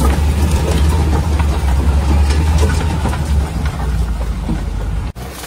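Maruti Suzuki Gypsy's engine running at low speed, heard from inside the cab, a steady deep hum with scattered light ticks and rattles. It cuts off abruptly near the end, giving way to a quieter vehicle sound.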